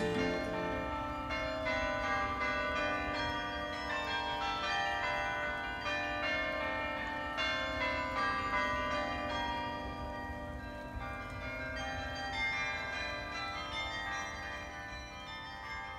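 Sather Tower's carillon ringing out a slow tune, its bells sounding many overlapping notes that ring on and die away. It grows gradually fainter toward the end.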